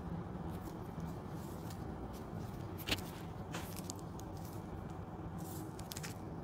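Paper wrapper of a cone ice cream crinkling as it is handled and turned in the fingers, with a few sharp crackles, the loudest about three seconds in, over a steady background hiss.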